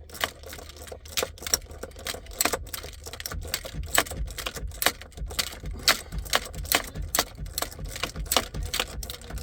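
Ratchet wrench clicking in uneven strokes, several clicks a second, as a bolt is run in by hand, with light metallic tool knocks.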